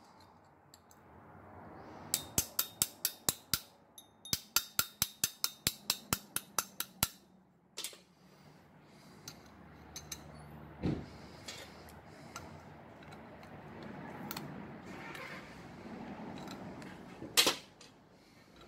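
Metal RC axle parts being handled and fitted into a metal axle housing on a steel workbench: two runs of quick, evenly spaced metal clicks, then scattered clinks and knocks, with a heavier knock about halfway and a sharp clack near the end.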